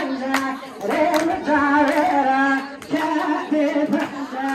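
A woman singing a Kurdish folk song (kilam) in long, wavering held notes, with hands clapping along.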